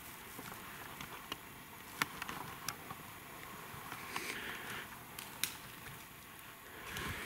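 Faint rustling and scattered light clicks of a person moving over dry leaf litter, a few sharper clicks standing out.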